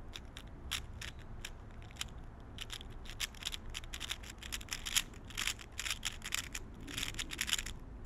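A 3x3 Rubik's Cube being speed-solved by hand: rapid plastic clicks and clacks of its layers being turned, in quick irregular runs that are densest about five and a half seconds in and again near the end.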